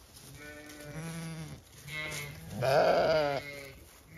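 Zwartbles sheep bleating three times, the last bleat the loudest, with a wavering pitch.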